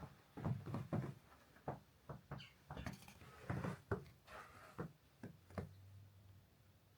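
Footsteps crunching in snow, a series of soft, uneven steps that thin out near the end.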